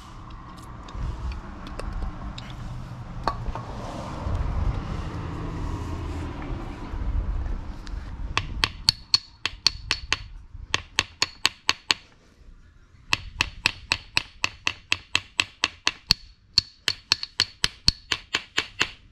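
Low rumbling and scraping of parts being handled, then from about eight seconds in, four runs of rapid, sharp metal tapping at about five strikes a second, each strike ringing slightly. This is light hammer taps used to work a part of the air strut loose.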